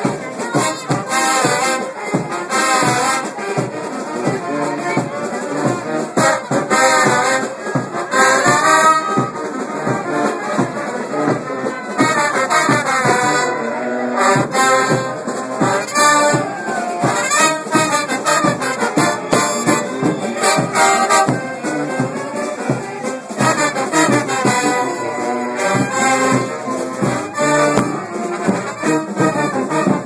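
Frevo played live by a street brass band: trombones, trumpets and a sousaphone carry the tune over a steady percussion beat.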